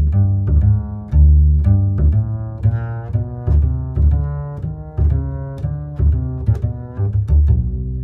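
Background music: low string notes, plucked and bowed, over a steady beat.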